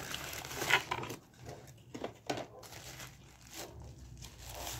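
Packaging rustling and crinkling as a mini speaker is slid out of its cardboard box and handled in a thin white wrapping sheet. It comes as a string of irregular rustles, the loudest about a second in.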